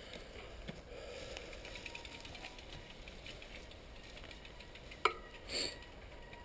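Faint, rapid ticking of a mountain bike's freewheel hub ratchet, with a sharp click about five seconds in and a brief short call just after.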